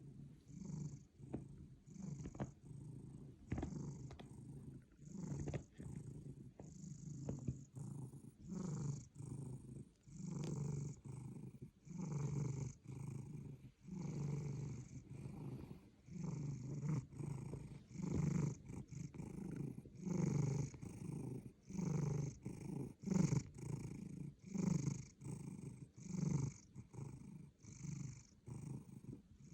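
Domestic cat snoring heavily, a low rasping rattle with each breath, about one breath a second.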